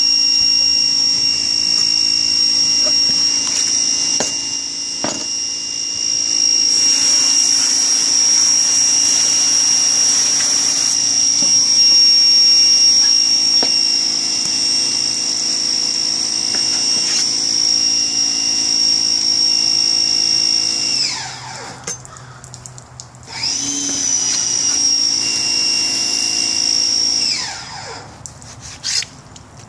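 A small electric motor running with a steady high-pitched whine. It winds down and stops about two-thirds of the way in, spins back up a couple of seconds later, then winds down again near the end.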